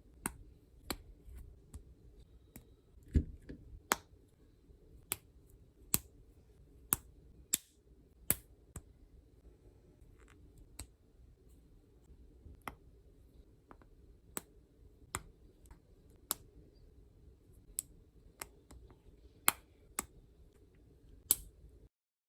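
Lego bricks clicking as pieces are handled and pressed together: a string of sharp plastic clicks, roughly one or two a second, over a faint low hum. The sound cuts off just before the end.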